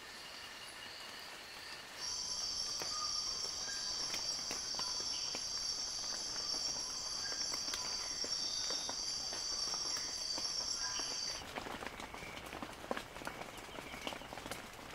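Insects trilling in a steady high chorus, faint at first, much louder from about two seconds in, then cutting off abruptly about eleven seconds in. Scattered sharp drips, like raindrops, tap throughout and stand out after the trilling stops.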